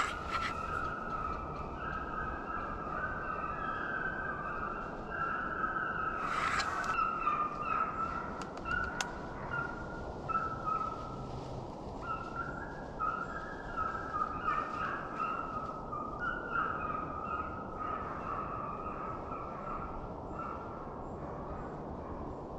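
A pack of deer hounds baying continuously as they run a deer, many voices overlapping into a wavering chorus. A short noise cuts in about six and a half seconds in.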